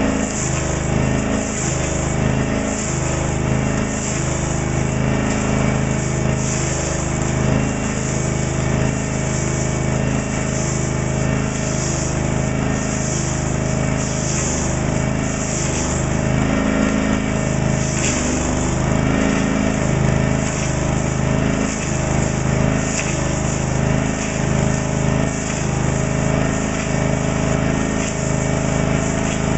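Honda petrol engine of a log-rounding machine running steadily under load while its rotary cutter head mills a log in a rough cylindering pass.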